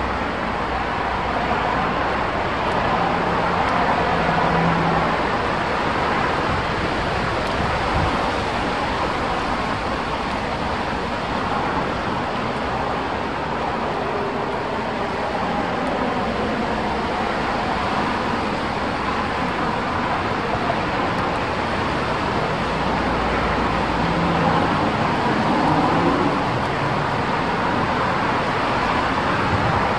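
Steady rush of strong wind, swelling a little in places, with a faint low hum twice.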